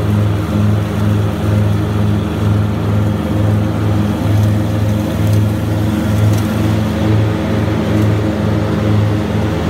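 Grasshopper 325D zero-turn mower's diesel engine running steadily at working speed, with its Power Vac leaf-collection system, as the mower drives across a lawn. A loud steady drone that swells and fades about once every three-quarters of a second.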